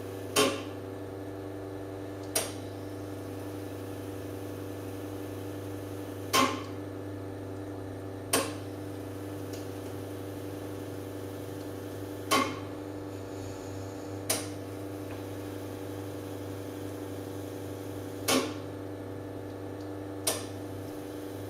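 Carimali Gusto automatic coffee machine rinsing the cleaning-tablet chemical out of its brewing unit: a steady hum with sharp clicks in pairs, the two clicks two seconds apart and a new pair about every six seconds, four pairs in all.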